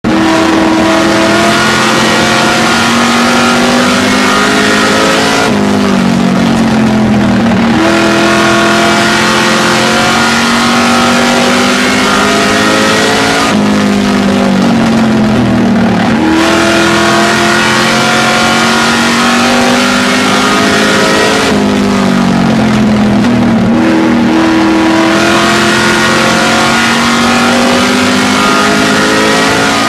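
NASCAR Truck Series race truck's V8 engine heard from inside the cab at racing speed, held at high revs, then dropping in pitch and climbing back three times, about every eight seconds, as the driver lifts for the turns of each lap.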